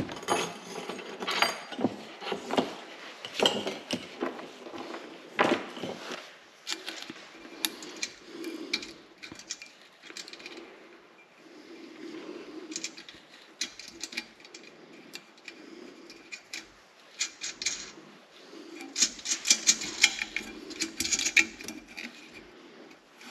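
Small metal clinks and clicks of nuts being run down by hand onto a diesel heater's mounting studs, with small hardware being handled. The clinks come irregularly and cluster in a busier run near the end.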